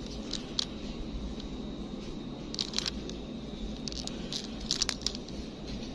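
Plastic blister packaging crinkling and crackling in short bursts as it is handled, over a steady low hum.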